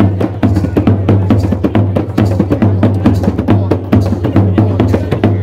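Traditional Maroon hand drumming: several hand-played drums, among them a square box-frame drum, beating a fast, steady rhythm of sharp strikes over a deep drum tone.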